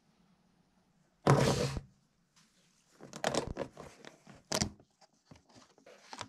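Handling noises: a loud thunk about a second in, then clicks and crackles of a clear plastic storage box and the rustle of paper envelopes as gloved fingers sort through them.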